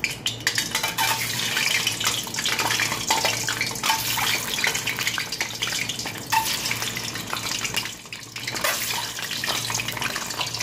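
Peeled hard-boiled eggs going one after another into hot oil in a metal wok, the oil sizzling with dense crackling and a few sharper pops. The eggs are scored with a knife to keep them from bursting in the oil.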